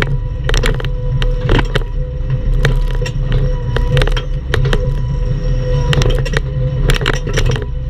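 Bobcat E10 mini excavator's diesel engine running steadily with a constant hydraulic whine, while irregular metallic clanks and knocks come from the machine working at a palm stump.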